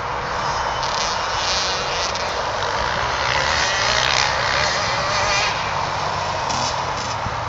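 Small 65cc two-stroke motocross bikes, Kawasaki KX65s, heard from across the field, revving up and down as they ride the dirt track, over a steady background rush.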